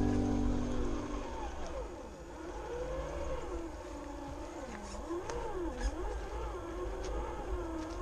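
Traxxas TRX-4 RC crawler's electric motor and gears whining, the pitch rising and falling as the throttle changes, with a few light knocks.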